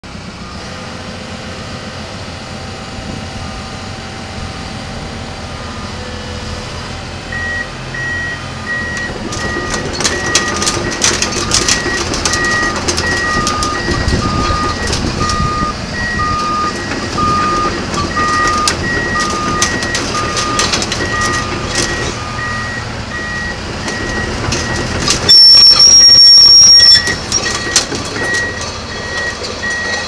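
Komatsu PC200-10 hydraulic excavator running and moving, with a regular beeping alarm of two alternating tones that starts several seconds in and clanking from its steel tracks over a low engine rumble. Near the end there is a loud high-pitched hiss and whistle lasting about a second and a half.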